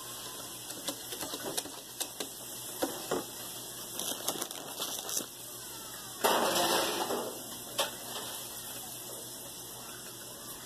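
Scattered light clicks and taps of kitchen utensils and dishes: a wire whisk in a stainless steel mixing bowl and vanilla wafers being set in a glass dish. A short scuffing noise comes about six seconds in, and a sharp click just after.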